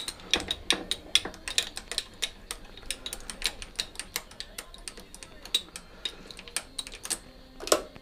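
Sieg C6 metal lathe facing off an aluminium rod, heard as rapid, irregular clicking and ticking with a louder burst near the end, played back sped up four times.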